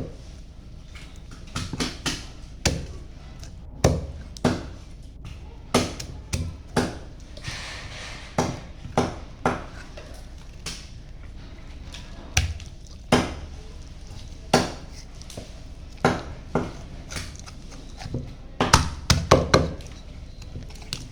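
Knife chopping raw chicken on a cutting board: sharp, separate chops at irregular intervals, about one a second, with a quick run of several chops near the end.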